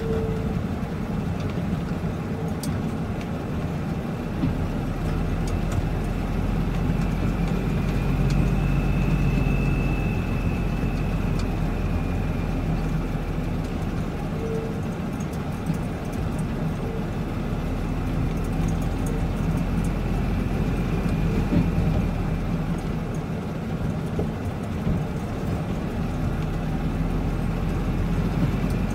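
Truck engine running and road noise heard from inside the cab while driving slowly on a gravel road: a steady low hum under a rough rumble, with a faint high whine rising and fading for a few seconds near the middle.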